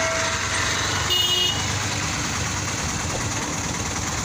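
Swaraj tractor diesel engines running steadily, with a brief high tone about a second in.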